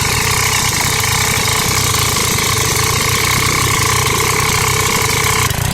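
Engine running steadily at idle, with a steady whine over it that cuts off suddenly near the end while the engine carries on.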